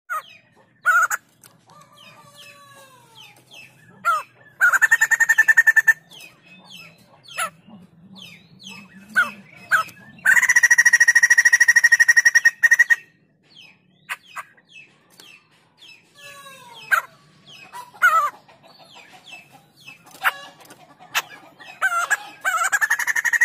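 White-crested laughingthrush calling: varied short whistles and gliding chirps, broken three times by a loud, rapid chattering call lasting two to three seconds, the longest about halfway through and the last starting near the end.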